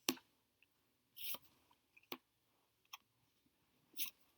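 Faint, scattered clicks and two short rustles of flashcards being handled and changed.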